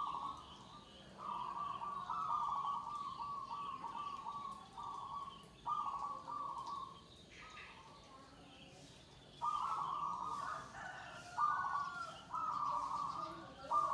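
Zebra dove (perkutut) cooing: several phrases of rapid trilled notes, with short pauses between them.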